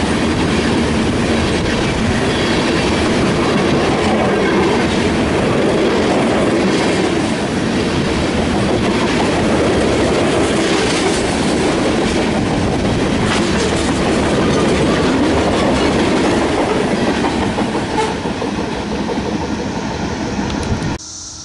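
Freight train of tank cars rolling past close by: steady rumble of steel wheels on rail, with wheel clicks over the rail joints. The sound eases near the end as the last car goes by.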